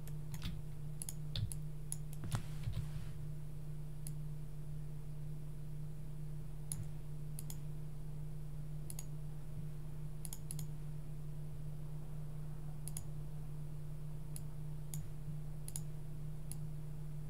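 Computer mouse clicking irregularly, some clicks in quick pairs, over a steady low hum.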